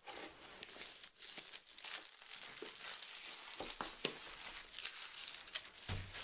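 Packaging crinkling and rustling as a power-supply box is opened and its contents are handled, with scattered small clicks and knocks.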